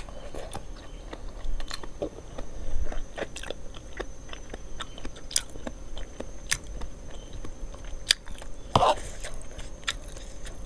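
Close-miked chewing of noodles and enoki mushrooms, with irregular wet mouth clicks and smacks.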